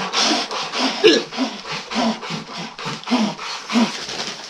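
A man panting quickly and heavily, several breaths a second, with short voiced gasps in between, the loudest about a second in.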